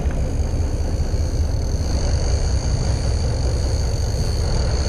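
Boat engine running steadily with a low rumble while the boat is under way.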